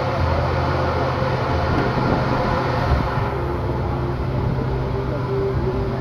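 Steady low machinery hum of an amusement-park drop-tower ride, over a busy background din with distant voices. The higher hiss drops away about three seconds in.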